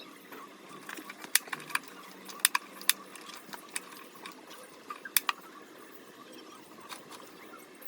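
Scattered sharp clicks and light taps from handling air conditioner parts during disassembly, about half a dozen spread over several seconds, over a faint steady background.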